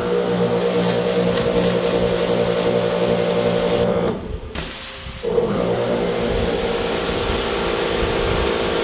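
Kärcher K1900 electric pressure washer running: a steady motor-and-pump hum with the hiss of water spraying from the gun, while it is still building up pressure. It cuts out about four seconds in and starts again about a second later.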